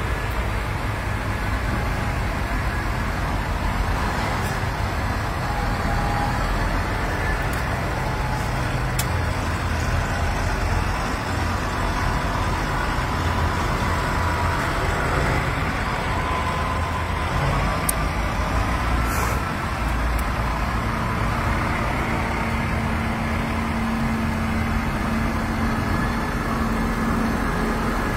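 A column of large farm tractors driving past one after another, their diesel engines running steadily with a low rumble. A steadier engine drone comes in about three quarters of the way through.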